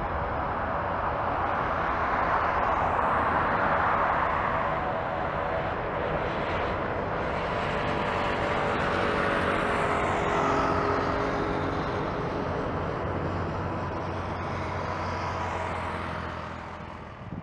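An Airbus A319's twin CFM56-5B7/P turbofan engines at takeoff thrust: a steady jet roar with humming fan tones that slowly sink in pitch as the aircraft passes and climbs away, fading near the end.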